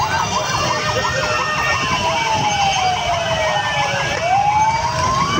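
Emergency-vehicle sirens: one slow wail that rises, falls for a few seconds and rises again near the end, with a fast warbling siren pattern over it, above the noise of a crowd on the move.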